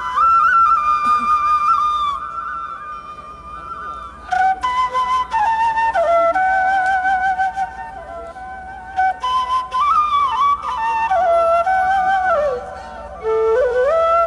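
Flute music: a slow melody of long held notes with vibrato, sliding between pitches.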